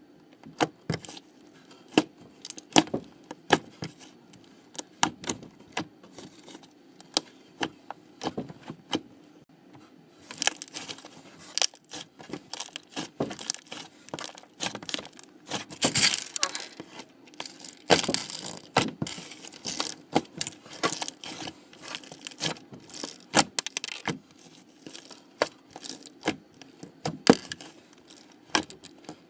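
Slime being squeezed and worked by hand, giving a string of irregular sharp pops, clicks and crackles, thicker and noisier in a few stretches.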